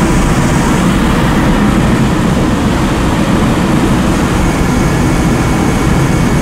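Sonofresco 1 kg Profile fluid-bed coffee roaster running early in a roast: its blower forces hot air up through the glass chamber and keeps the green coffee beans tumbling. It makes a steady, loud rush of air.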